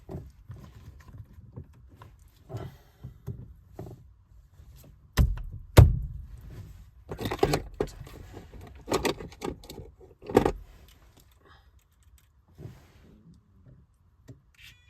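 Car interior trim and shifter parts being handled and snapped back into place: clicks and rattling, with two sharp knocks about five to six seconds in, a rattly stretch after them and another knock about ten seconds in.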